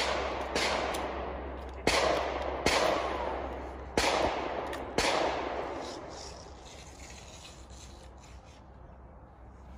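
Pistol gunshots: about six shots, irregularly spaced over the first five seconds, each followed by a long echo that dies away.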